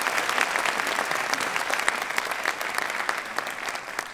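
Audience applauding: dense, many-handed clapping that thins out and fades near the end.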